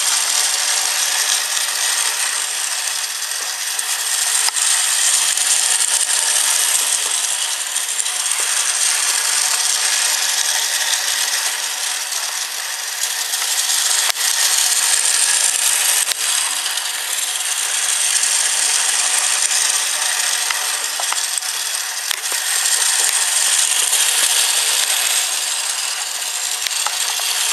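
Battery-powered toy circus train running on its plastic track: a steady, high-pitched mechanical rattle and whir from its motor and gears. It grows louder and eases off in waves about every nine seconds.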